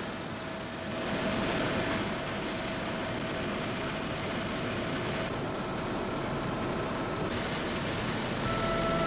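Helicopter cabin noise in flight: a steady rush of rotor and turbine engine noise with a constant whine running through it.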